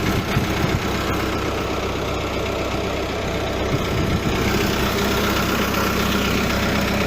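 Diesel engine of a 2008 New Holland LB115.B backhoe loader idling steadily; the engine is said to knock and blow bluish smoke, which the mechanics take for an engine that is worn out.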